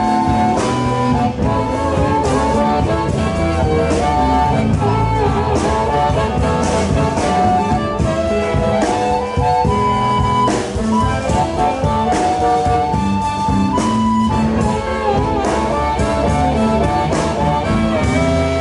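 Live blues band playing, with a harmonica carrying the lead over electric bass and drums. The harmonica's held, bending notes sit above a steady drum beat.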